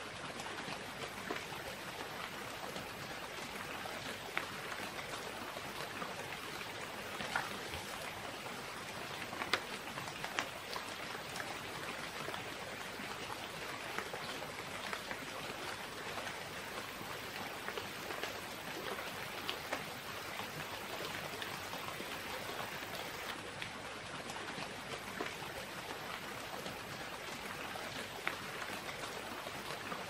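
Steady hiss of water in the forest, with scattered light ticks and drips throughout.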